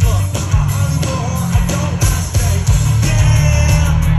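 Live rock music played loudly through a festival's stage sound system, with heavy bass, drums and guitar.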